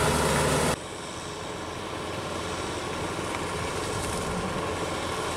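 Tractor with steel cage wheels working a flooded rice paddy: the diesel engine runs steadily while the cage wheels and rear puddling roller churn through the mud. The sound drops abruptly to a quieter, more distant run a little under a second in.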